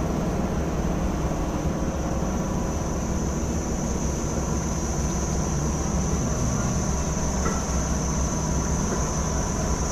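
An engine running steadily with a low rumble, under a steady high-pitched whine.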